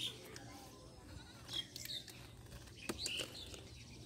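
Faint, short high-pitched animal calls, several of them, with a few sharp knocks in between.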